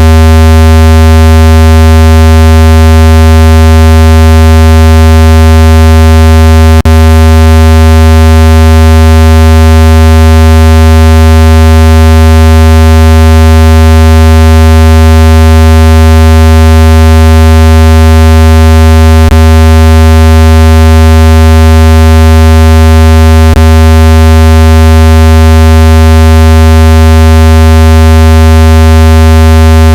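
A loud, steady, low-pitched buzzing electronic tone: a water-eject test tone that shakes water out of a phone speaker. Three faint clicks break it briefly.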